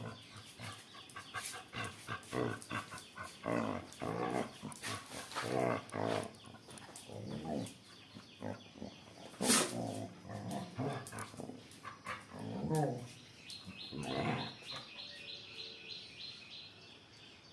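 A miniature pinscher and another dog vocalising in a series of short calls that rise and fall in pitch, with one sharp, louder noise about halfway through.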